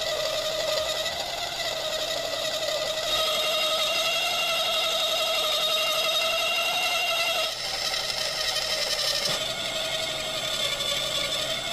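Manual metal lathe turning a brass bar, the cutting tool taking a cut. A steady, slightly wavering whine over a cutting hiss, changing a little about three seconds in and again past seven seconds.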